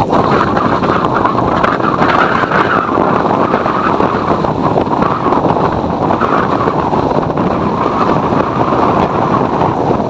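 Cyclone wind: a loud, steady rush of storm wind buffeting the microphone.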